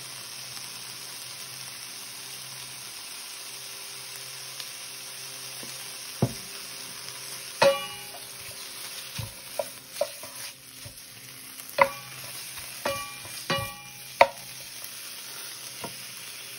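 Raw bacon pieces sizzling faintly as they start to render in a nonstick skillet that is not yet very hot. From about six seconds in, a wooden spatula knocks and scrapes against the pan several times as the pieces are pushed apart, some knocks with a short ringing clink.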